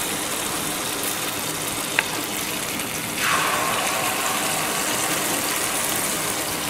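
Moong dal malpua batter frying in hot oil in a pan: a steady sizzle that grows louder about three seconds in, with one small click about two seconds in.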